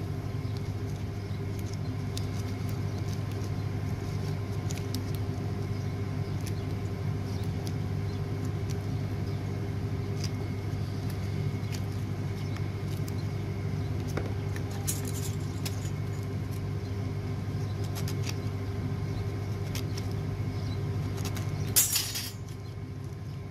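A steady low mechanical hum, like a motor or engine running, under small scattered metallic clicks of pliers and metal battery-terminal parts being handled. A brief louder scrape comes near the end.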